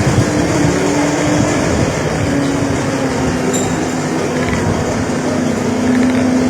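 Heavy vehicle engine running, a steady drone that slowly drops in pitch, over loud rumbling traffic-like noise.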